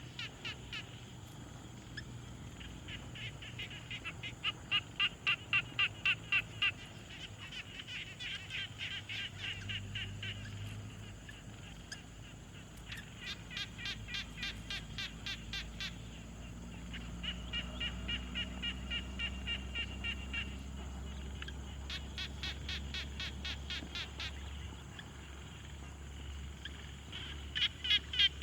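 Frog chorus: several frogs calling in overlapping bouts of rapid, evenly pulsed croaks, each bout lasting a few seconds, with a low rumble underneath from about ten seconds in.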